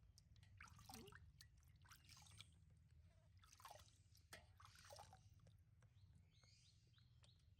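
Faint dripping and small splashes of bathwater as a baby monkey is bathed, with scattered light clicks.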